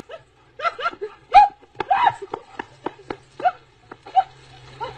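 A dog barking in a rapid, uneven series of short barks.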